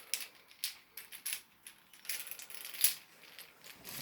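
Small plastic fidget toys and their packaging being handled: a string of short rustles and clicks.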